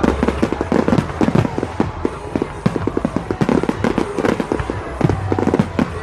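Fireworks display: a continuous barrage of sharp bangs and crackling from many shells bursting in quick succession.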